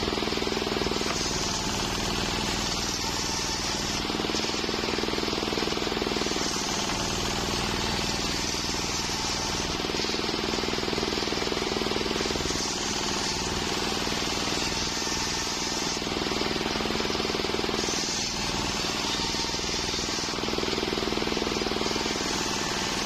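Homemade circular sawmill running, its blade sawing a waru (sea hibiscus) log into boards; the sound swells and eases every two seconds or so as the cut loads.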